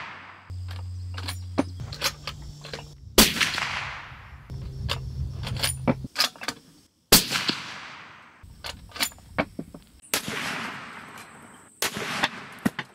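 Suppressed .300 Winchester Magnum bolt-action rifle firing about four loud shots, each trailing off in a ringing echo. Short metallic clicks of the bolt being worked come between the shots.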